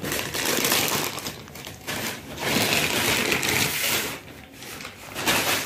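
Clear plastic wrapping crinkling and rustling as a tripod stand is pulled out of it and handled, in two long stretches with a shorter burst near the end.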